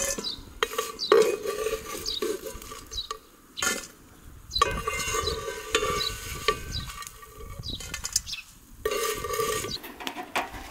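Metal spoon scraping fried potato strips out of a pan of hot oil and tipping them into a stainless steel bowl, with the oil sizzling and the spoon clinking on the metal. It comes in several strokes with short pauses between.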